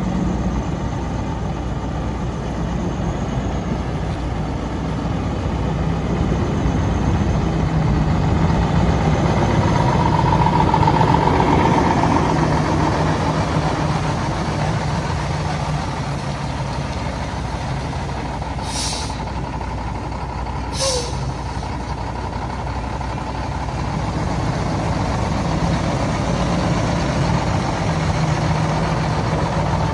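Six-cylinder Cummins diesel engine of a 2008 International 7600 vacuum truck running steadily, swelling a little partway through. Twice, about two seconds apart, a short hiss of air from the truck's air brake system.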